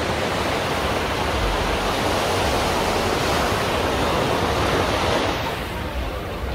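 Small ocean waves breaking and washing up a sandy beach: a steady rush of surf that swells through the middle and eases a little near the end.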